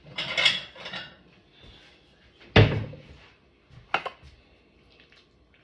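Kitchen dishes being handled as a small plate is fetched. There is a rustle near the start, one loud knock about two and a half seconds in, and a lighter clink about four seconds in.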